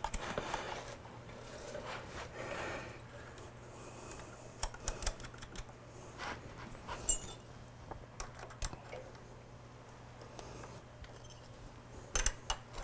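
Scattered metallic clicks and clinks of hand tools on a motorcycle's gear-shift linkage rod as its fasteners are tightened back up, a few at irregular moments and a quick cluster near the end, over a faint steady low hum.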